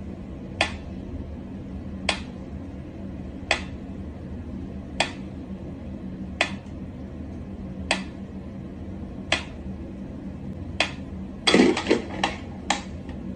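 Mechanical pyramid metronome ticking slowly, one sharp tick about every one and a half seconds. Near the end comes a quick flurry of louder knocks and clicks.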